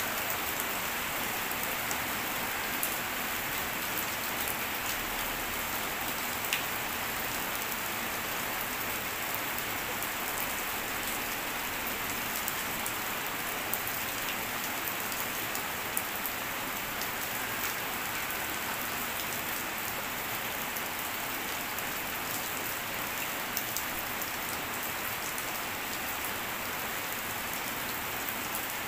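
Steady rain falling, with scattered individual drops ticking louder here and there.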